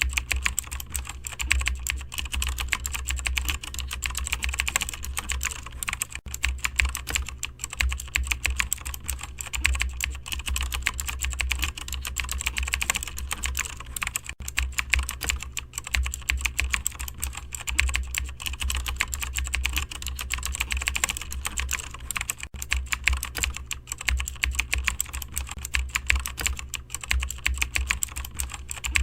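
Continuous rapid typing on a computer keyboard, a dense clatter of keystrokes with a low steady hum underneath.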